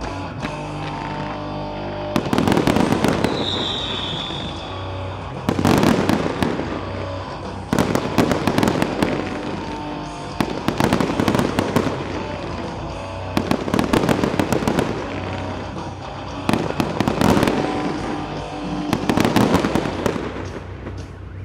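Aerial fireworks bursting in repeated loud volleys every two to three seconds, over the show's accompanying music. A short high whistle sounds about three seconds in.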